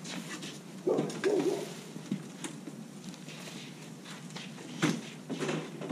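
Scattered knocks and clunks from a hand truck carrying a heavy gun safe as it is worked up a front step, with a brief grunt-like voice about a second in.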